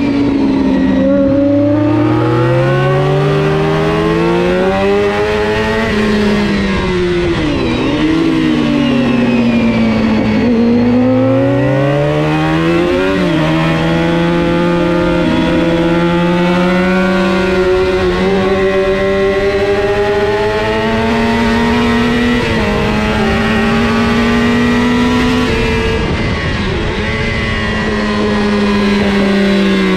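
A 400 cc supersport racing motorcycle engine, heard from on board at race pace. Its pitch climbs under acceleration, drops sharply twice under braking for corners, about seven and eleven seconds in, and steps with gear changes, over steady wind and road noise.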